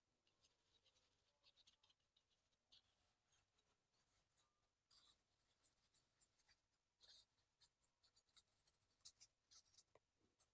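Faint scratching of a Chinese ink brush on paper: short, scattered strokes, coming more often in the second half, as the bark of a pine trunk is textured in fish-scale strokes.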